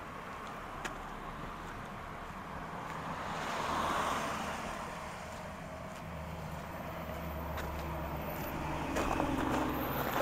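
A car passes, its road noise swelling to a peak about four seconds in, followed by a vehicle engine's steady low hum from about six seconds. Crunching footsteps on melting snow come in near the end.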